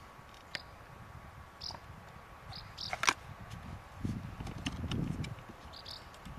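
Gamo Socom 1250 spring-piston air rifle being handled and reloaded between shots: a few sharp metallic clicks from the action, the loudest about three seconds in, then a low rustling rumble of the rifle being handled.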